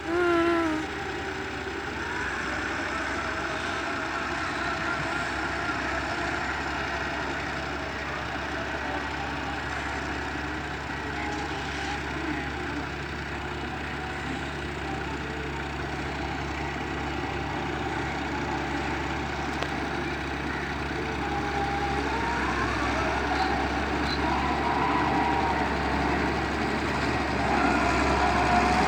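Excavator's diesel engine running steadily, growing a little louder from about twenty-two seconds in, with wavering whine-like tones over it. There is a brief loud tone at the very start.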